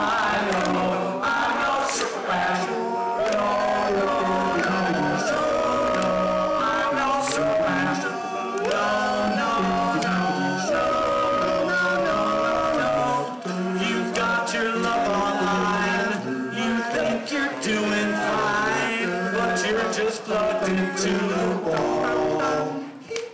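Male a cappella group singing a song live in multi-part harmony, with a low voice part holding notes beneath the melody; no instruments.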